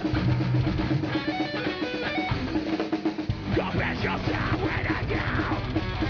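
Live heavy metal band playing, with distorted electric guitars over a drum kit. About three seconds in, the band shifts into a denser, fuller passage.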